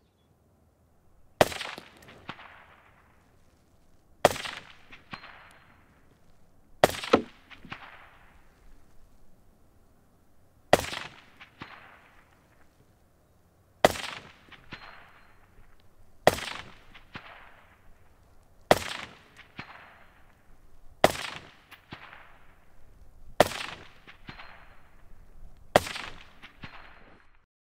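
Suppressed AR-15 in 6.5 Grendel fired about ten times in slow aimed fire, one shot every two to three seconds, each report trailing off in an echo. A short, faint high ping of a steel target being hit follows several of the shots moments later.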